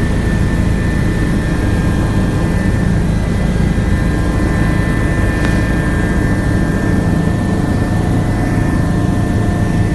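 Helicopter in flight: loud, steady rotor and engine noise with a steady high whine above it.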